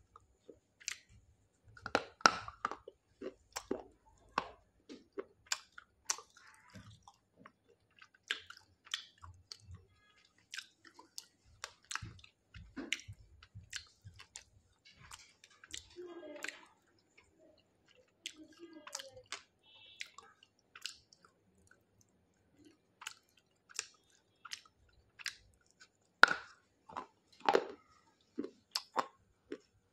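A person chewing and crunching hard pieces of baked, dried clay: a run of sharp, irregular crunches and clicks, loudest about two seconds in and again near the end.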